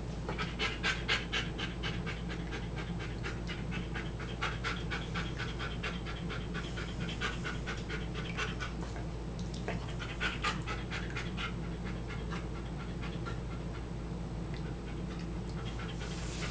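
A large shaggy dog panting rapidly with its mouth open, in quick spells of breaths that ease off and grow weaker in the last few seconds. A low steady hum runs underneath.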